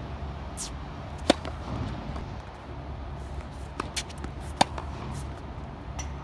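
Tennis racket strikes on the ball: a sharp pop from a served ball about a second in, then a second loud pop about three seconds later as a serve is returned, with fainter, more distant hits and bounces around it. A steady low rumble runs underneath.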